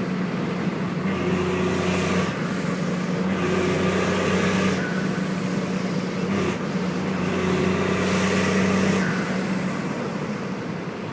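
Straight-piped 24-valve Cummins turbo diesel inline-six in a 2001 Dodge dually, running at road speed with a steady low drone. The drone swells louder and fuller three times, each for a second or so.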